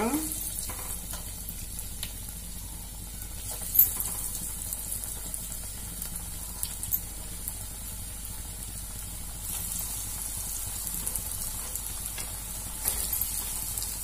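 Breadcrumb-coated egg kababs deep-frying in hot oil on low heat: a steady sizzle with scattered crackles and a sharp click about four seconds in. The sizzle grows louder about ten seconds in and again near the end as more pieces go into the oil.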